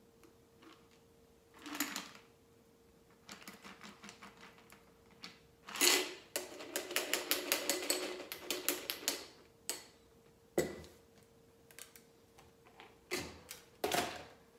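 Metal cocktail shaker tin and strainers rattling during double-straining: two runs of rapid, even metallic tapping, about six taps a second, around the middle, the first set off by one loud clack. A few separate clinks of metal on the bar follow near the end.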